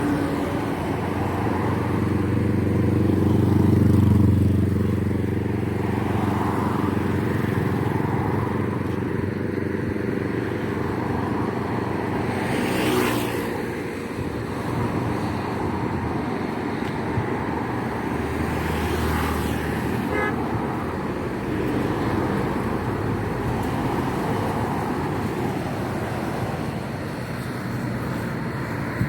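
Busy street traffic: motorbike and car engines running, with horns tooting.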